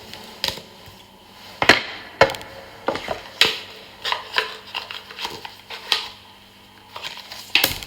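A deck of reading cards being shuffled and handled, giving about seven sharp, irregular taps and clicks.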